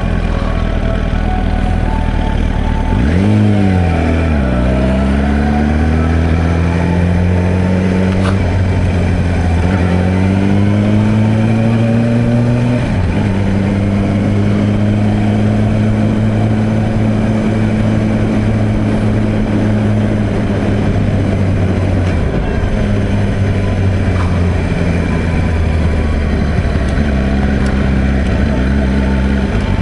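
2007 Yamaha YZF-R1's inline-four engine pulling through the gears: a sharp rev a few seconds in, then the pitch climbs and drops back with each upshift. After that it holds a steady cruising note, easing briefly twice near the end.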